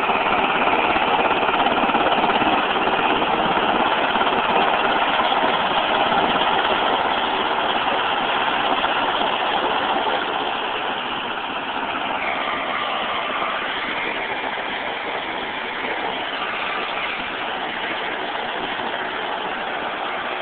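UH-60 Black Hawk helicopter running on the ground, its twin turboshaft engines and turning rotor making a loud, steady whine and rush. From about halfway through, the sound gets quieter and a whine drops in pitch, as if the engines are starting to spool down.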